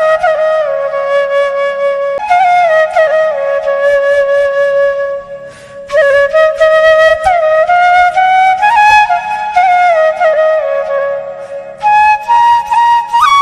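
Bamboo flute (bansuri) playing a slow, ornamented melody with sliding notes, in phrases broken by short breaths, over a faint steady low drone.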